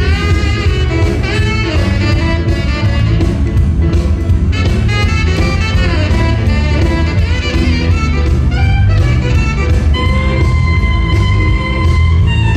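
Up-tempo jive music with a steady beat.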